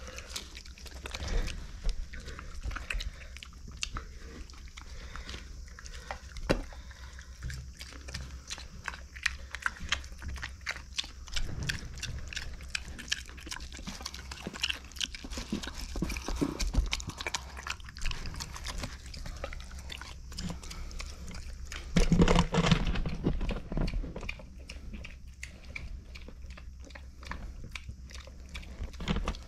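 Micro pig chewing corn kernels out of a metal bowl: a steady run of quick wet clicks and crunches, with a louder, deeper stretch of noise about three-quarters of the way through.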